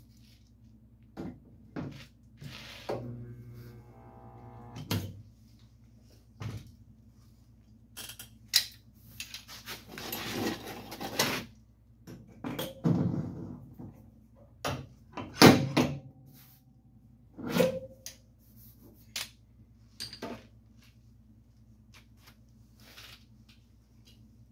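Irregular knocks, clicks and scrapes of hand tools working on a dented truck box side during pin-pull dent repair, with a longer rasping noise about ten seconds in and the sharpest hits near the middle.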